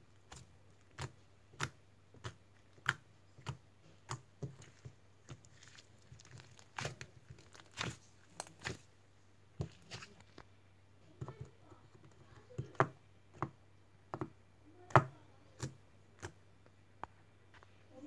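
Soft blue dough being kneaded, pressed and slapped by hand against a hard tabletop, giving a string of sharp, irregular pops and slaps, roughly one or two a second.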